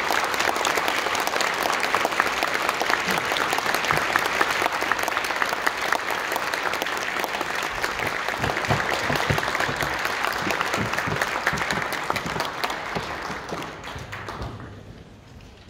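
Audience applauding, the clapping dense and steady at first, then dying away over the last couple of seconds.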